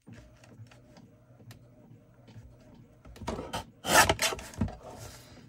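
Paper handled on a paper trimmer, with faint light ticks, then a louder scraping rub of paper and blade about three seconds in as the page is trimmed straight.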